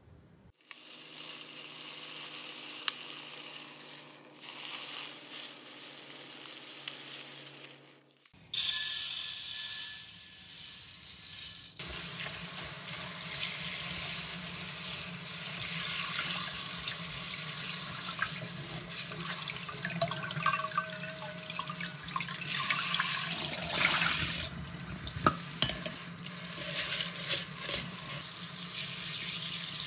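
A quieter hum for the first eight seconds, then a kitchen tap comes on suddenly and water runs steadily onto hulled mung beans in a mesh strainer in a stainless steel sink, as hands rub and swish the beans through the water.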